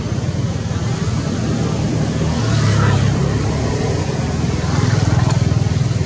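Low engine rumble of road traffic, swelling as vehicles pass about halfway through and again near the end.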